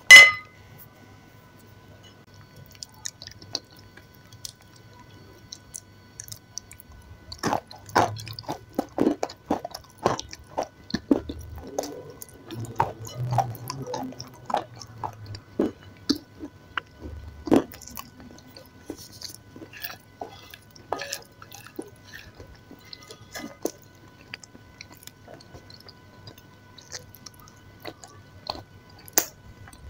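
Close-miked mouth sounds of eating a soft, creamy food: wet smacks and sharp clicks, thick from about a quarter of the way in to past the middle and sparser after, with one loud click at the very start.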